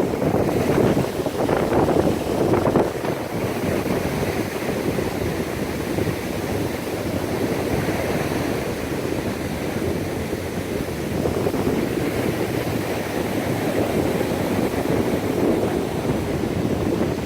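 Wind rushing over the microphone mixed with the wash of ocean surf, a steady noise that gusts harder in the first few seconds.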